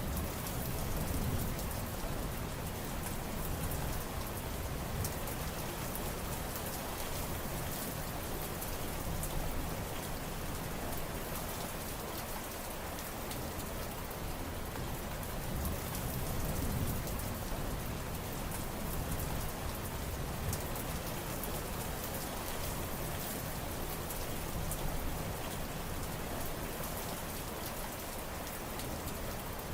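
Steady rain falling, a continuous even hiss, with a low rumble swelling briefly about a second in and again about halfway through.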